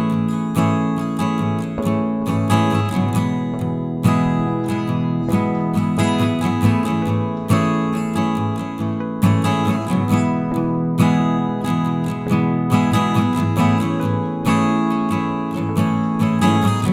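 Background music: acoustic guitar strumming chords in a steady, upbeat rhythm.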